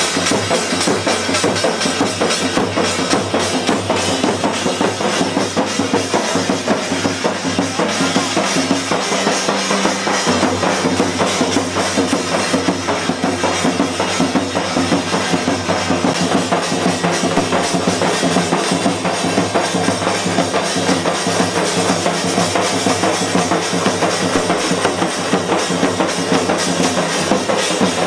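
Loud, fast drumming with music, beating on without a break.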